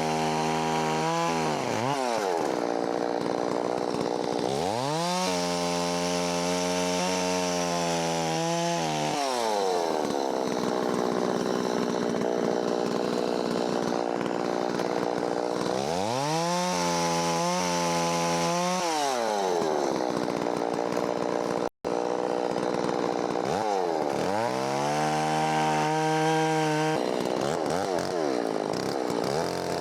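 Holzfforma 660 clone two-stroke chainsaw, revved up and eased back about four times, settling to a lower running note between revs. A momentary break in the sound comes about two-thirds through.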